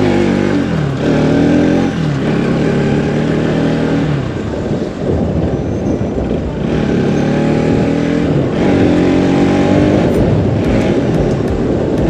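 Bajaj Pulsar NS200's single-cylinder engine pulling the motorcycle along, its pitch climbing as it accelerates and dropping back at the gear changes, several times over.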